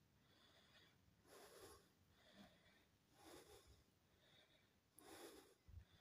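Faint, heavy breathing close to the microphone: soft puffs of breath about once a second.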